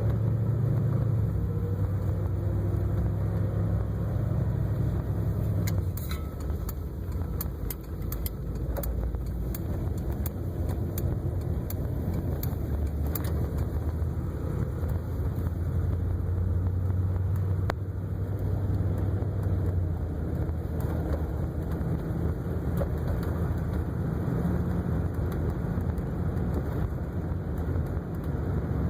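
1958 Cadillac's V8 engine running with a steady low drone. A scatter of sharp clicks comes through between about six and fourteen seconds in.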